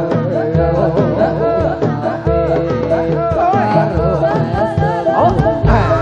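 Live Javanese jathilan accompaniment: a sinden sings an ornamented, sliding melody over gamelan-style ensemble music and steady drum strokes.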